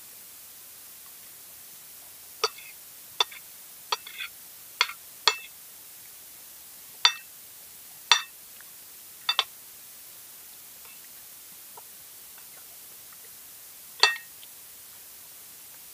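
Spoon and fork clinking against a plate during a meal: about ten short, ringing clinks at uneven intervals, most of them in the first ten seconds and one more near the end.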